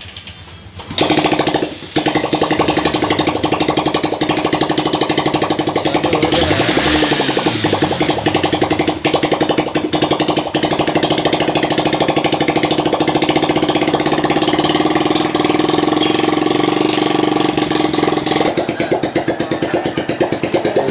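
Bajaj Platina 100's single-cylinder four-stroke engine starts about a second in, dips briefly, then runs steadily with the throttle held open, its note changing near the end. It is a test run after a top-end rebuild with new piston rings and piston, done because the engine was smoking.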